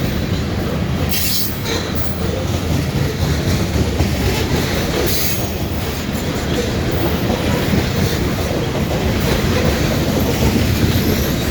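Grain train's freight cars rolling steadily past, a continuous rumble with the clatter of wheels on the rails. A faint high wheel squeal comes in now and then, mostly in the second half.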